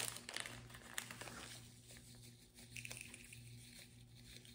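Faint crinkling and rustling of a small plastic bag being opened and handled, with a few light clicks, busiest in the first second or so and quieter after.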